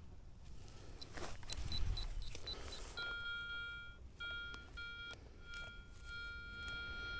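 Metal detector signalling: a quick run of short high beeps, then a steady electronic tone held with a few brief breaks, over some rustling handling noise at first.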